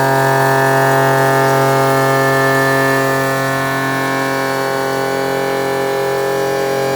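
A 2008 Kia VX500 CNC vertical machining center running, a steady whine made of many held tones with no breaks.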